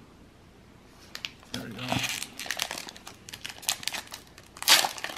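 Foil wrapper of an NBA Hoops basketball card pack crinkling and tearing as it is pulled open by hand, a run of sharp crackles with a louder burst near the end.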